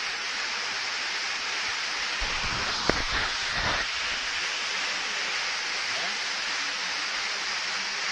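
Steady rushing water noise, an even hiss with no beat. About three seconds in, a brief low rumble and a knock break through it.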